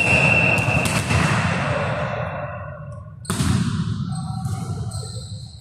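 A referee's whistle blows for about a second, then a little over three seconds in a volleyball is struck hard for the serve, a sharp hit that echoes around the sports hall.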